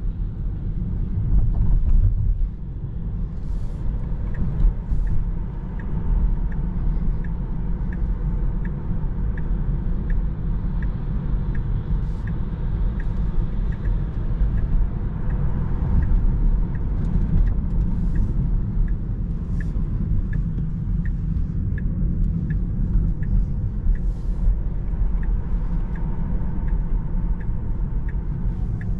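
Road and tyre rumble inside the cabin of a Tesla Model 3, an electric car with no engine note, while driving. From a few seconds in, the turn-signal indicator ticks evenly, a bit under two ticks a second.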